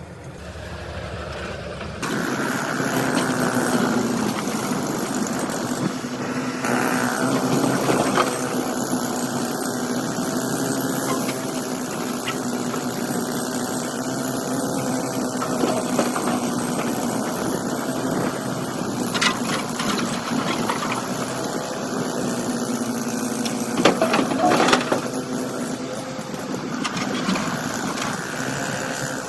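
Excavator's diesel engine running under working load, picking up about two seconds in, with a few knocks and scrapes of the bucket working rock.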